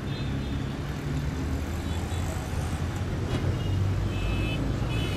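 Steady road-traffic rumble, with a few short high tones near the middle and end.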